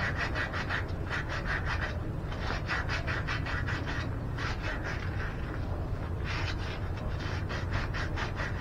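Quick back-and-forth scrubbing with a red abrasive pad, cleaning a copper pipe fitting, several strokes a second. The strokes come in bursts of about a second, with short pauses between them.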